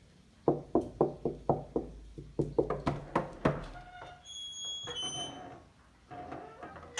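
A small child knocking on a door with the hand, about a dozen quick knocks in two runs, about four a second, each with a hollow low thud.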